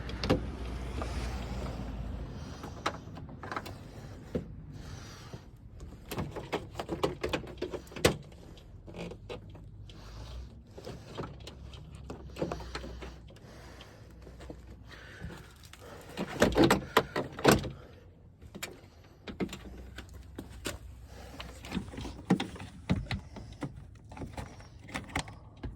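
Scattered clicks, knocks and rattles of hand work on a pickup truck's door, with parts being handled and fitted, and a busier run of knocks about two-thirds of the way through.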